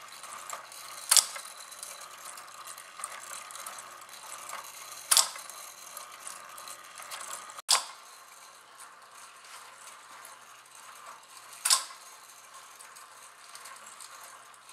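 Wooden cam-and-lever automaton driven by a small electric gear motor, running with a steady faint whirr and light ticking, broken by four sharp clacks a few seconds apart as its moving parts cycle.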